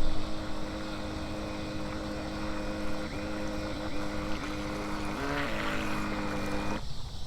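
Battery-powered remote-control racing boat's electric motor whining steadily as the boat trolls. Its pitch shifts a few times midway, and the motor cuts off sharply near the end.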